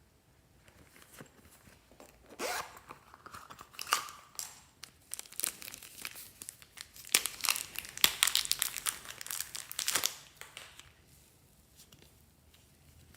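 Crinkly material being handled up close: irregular crinkling and tearing crackles that start about two seconds in, grow denser and louder in the middle, and die away near the end.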